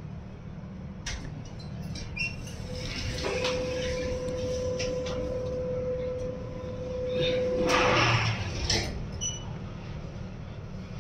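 Sigma elevator car stopping at a floor and its doors sliding open and then shut, over a steady low hum. A steady tone holds for about five seconds while the doors are open, and the loudest sound is the doors closing about eight seconds in.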